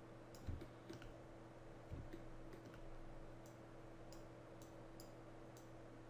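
Faint, scattered computer mouse clicks, about ten over a few seconds, some in quick pairs, over a steady low hum.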